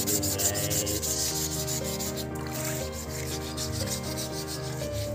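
Instrumental background music with a fast, even rasping beat, over the scrubbing of a small metal motorcycle part by hand in a tub of water.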